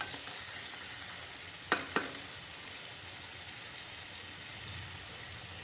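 Sliced potatoes frying in oil and tomato-onion masala in an aluminium pot, a steady sizzle during the bhuna stage before water is added. Two sharp knocks on the pot about two seconds in.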